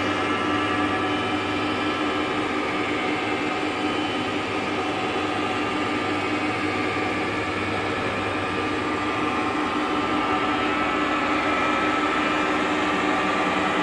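SAJO vertical milling machine running: a steady machine hum with several constant tones above it, unchanging throughout.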